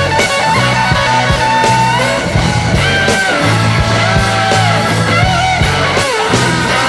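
Rock music with guitar: sliding lead lines over a steady bass and beat.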